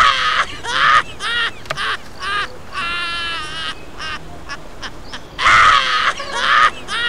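Cartoon-style comedy sound effect: a run of short, high, nasal quack-like squawks that bend in pitch, then one longer wavering call. The whole run starts over about five and a half seconds in.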